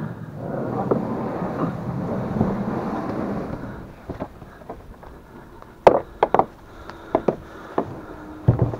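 Plastic sit-on-top kayak hull being slid through tall grass down a bank: a steady swishing, rustling scrape for the first few seconds, then a handful of sharp knocks and clatters as the hull and the gear on it bump along.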